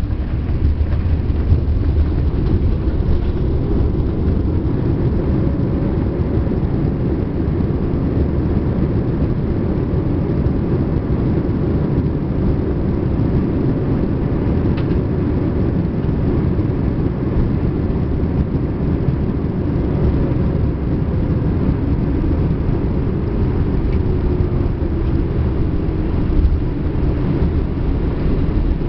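Steady rumble of a Boeing 787-8 airliner's jet engines and rushing air, with faint engine tones that slowly rise and fall.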